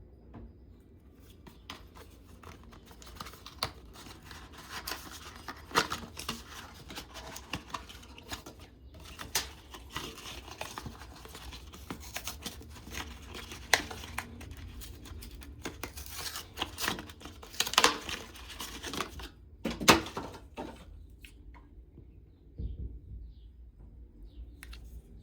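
Product packaging being opened and handled: tearing and crinkling with irregular clicks and knocks, quieter for the last few seconds.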